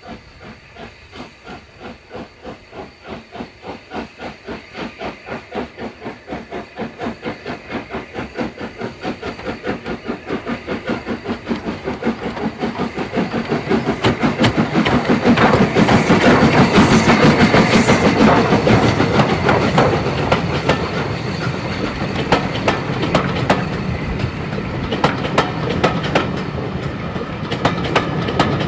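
SR Schools Class 4-4-0 steam locomotive No. 30925 working a train past, its three-cylinder exhaust beating in a steady rhythm that grows louder as it approaches and is loudest about halfway through. The beat then gives way to the clickety-clack of the carriage wheels running by over the rail joints.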